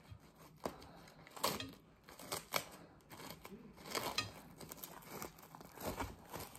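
Thin plastic wrap crinkling and crackling in irregular bursts as it is peeled off a ball of fufu, with a duller bump near the end.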